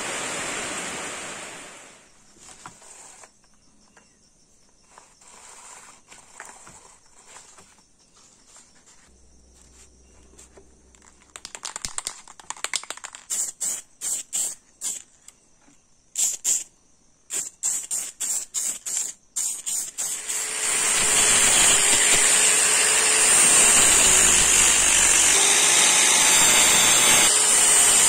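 Aerosol spray can sprayed in about fifteen short hisses, followed about two-thirds of the way through by an angle grinder running steadily as it grinds a steel axe blade.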